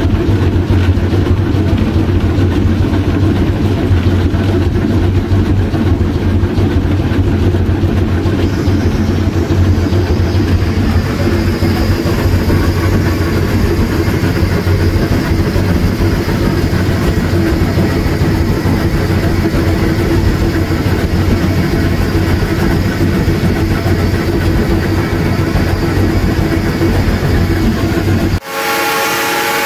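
Cab noise of a Shay geared steam locomotive: a loud, steady mechanical drone with a low hum underneath. Near the end the sound cuts suddenly to a chord of steady tones, the start of the locomotive's steam whistle.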